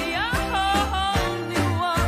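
Upbeat 1970s soul-disco pop song with a woman's lead vocal, sliding up in pitch near the start and bending through held notes, over a steady bass and drum beat.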